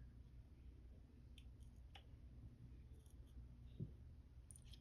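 Near silence with a few faint, scattered clicks of small metal gun parts being handled, as a punch is drawn out of an AR lower receiver and an anti-walk pin is worked in after it.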